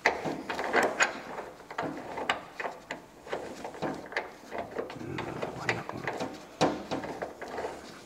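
Brass valve being screwed hand-tight onto a Baxi Combi 2 boiler's brass pipe connection by a gloved hand: irregular small metal clicks, taps and scrapes as the parts are handled and threaded.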